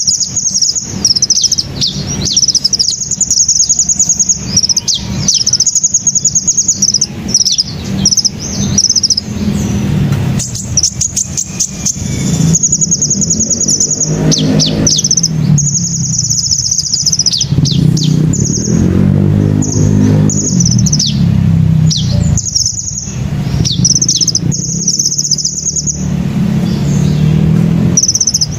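Sunbirds chirping and trilling in quick, high-pitched twittering phrases, almost without pause, with a low engine rumble from passing traffic underneath in the middle and near the end.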